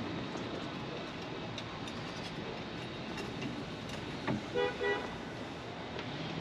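A vehicle horn gives two short toots in quick succession, just after a click about four seconds in, over steady background noise.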